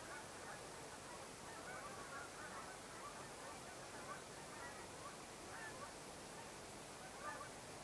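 Faint chorus of short, high, wavering yips and calls repeating irregularly over a steady hiss, which the recordist takes for coyotes.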